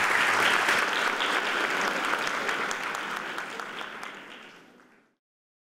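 Audience applauding, fading away to silence over the last couple of seconds.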